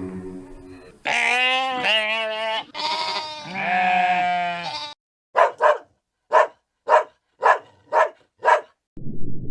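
A goat bleating twice in long, wavering calls, then a dog giving a run of about seven short barks, roughly two a second.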